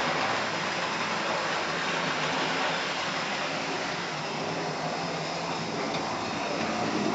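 Model trains running on a layout: a steady whirring rumble of the locomotives and wagons rolling along the track.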